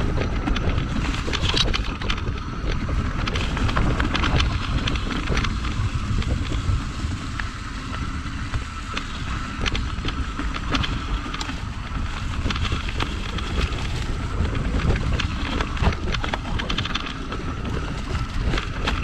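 Surly Krampus 29+ rigid mountain bike riding over a trail: wind buffeting the microphone and the fat tyres rolling, with a steady stream of small clicks and rattles from the bike over the rough ground.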